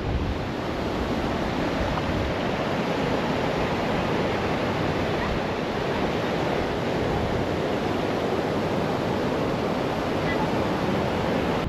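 Rough sea surf breaking and washing on a beach: a steady wash of waves, with some wind on the microphone.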